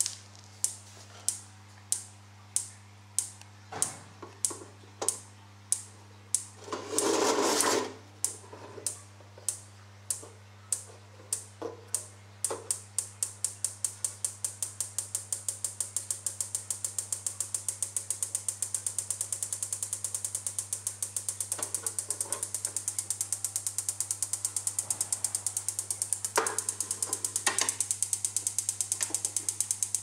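Strobe light's xenon flash tube clicking with each flash over a steady low hum, slowly at first, about one and a half clicks a second. From about twelve seconds in the flash rate is turned up and the clicks speed up into a fast, even rattle. A louder noise lasting about a second comes about seven seconds in.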